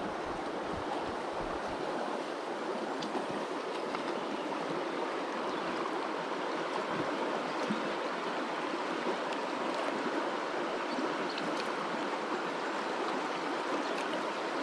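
Small trout stream flowing: a steady rush of running water.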